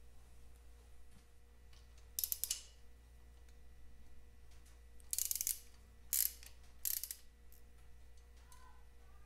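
Hand socket ratchet clicking in four short bursts as a bolt at the banjo fitting of the Vincent V-twin's rocker oil feed pipe is turned; the second burst is the longest.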